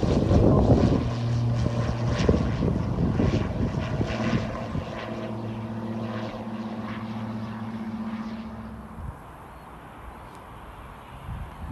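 An aircraft's engines droning steadily, then fading away about nine seconds in. Wind buffets the microphone at the start.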